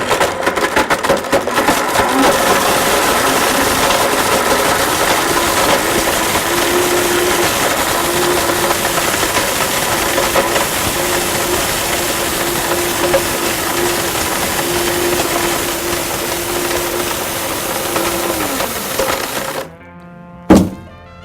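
Blendtec blender running on its soup cycle with a spring-steel tape measure inside, a loud grinding clatter over the steady motor tone, rattling hardest in the first few seconds. The motor winds down in pitch and stops about three quarters of the way through, followed by a single sharp knock.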